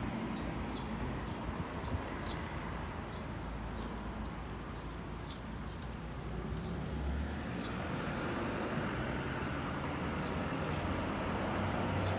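Street ambience: small birds chirping in short, repeated calls through the first part. Road traffic swells and grows louder in the second half as a vehicle approaches.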